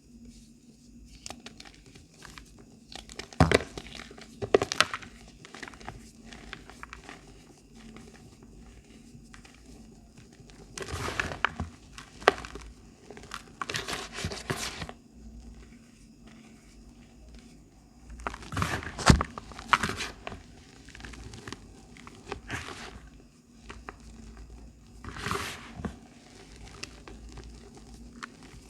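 Dried reforms, blocks of powder pressed back together, being crushed and crumbled by hand in several bouts of soft crunching a few seconds apart.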